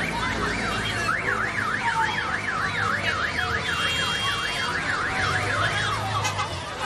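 An electronic alarm siren warbling rapidly up and down, about three to four sweeps a second, stopping near the end.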